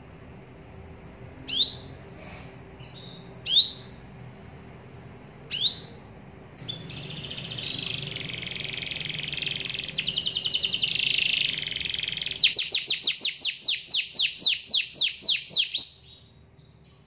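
Domestic canary singing: three single down-slurred chirps about two seconds apart, then a continuous run of rolling trills with a fast buzzy trill in the middle, ending in a series of about a dozen loud down-slurred notes, three or four a second.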